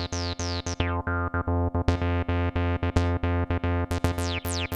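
Roland TB-303-style bass synthesizer playing a sequenced acid bass line: short repeated bass notes, about five a second, with squelchy resonant filter sweeps falling in pitch on the accented notes near the start and again near the end.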